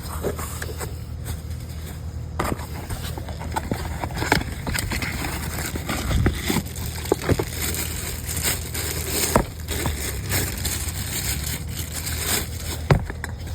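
Irregular scrapes, clicks and rustles of hands handling parts, over a steady low hum.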